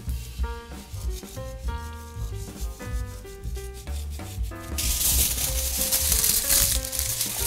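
Aluminium foil rustling and crinkling as it is spread and pressed over a glass baking dish, setting in about two thirds of the way through and louder than the rest. Background music with a steady beat runs throughout.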